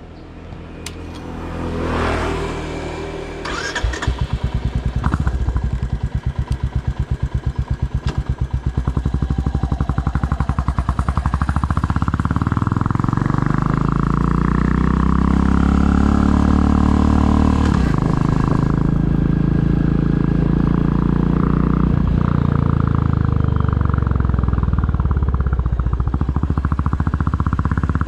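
Royal Enfield Classic 350 single-cylinder engine started about four seconds in, settling into an even thumping idle. The motorcycle then pulls away, its revs rising through the gears with a sharp drop in pitch at a gear change.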